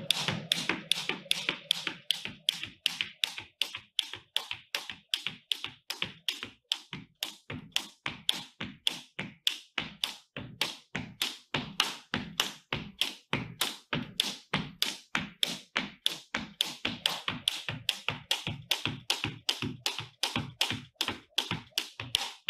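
Rapid, evenly spaced taps on a wooden floor from a person exercising, about three to four a second, kept up without a break.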